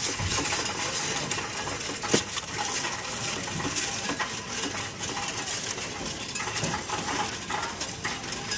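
Loose unsorted coins jingling and clinking in a continuous clatter as they are tipped from a sieve-like tray into a coin-counting machine, with one sharper clink about two seconds in.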